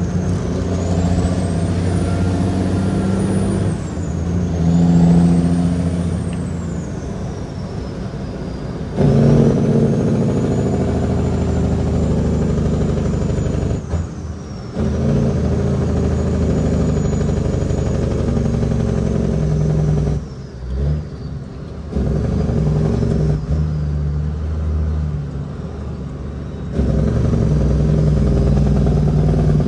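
Caterpillar 6NZ inline-six diesel in a Kenworth W900L running under a heavy load of 50 tons, its pitch stepping up and down. The engine note drops out briefly twice near the middle and comes back stronger, in the way of gear changes on an 18-speed box. A thin high whine rises and falls along with the engine.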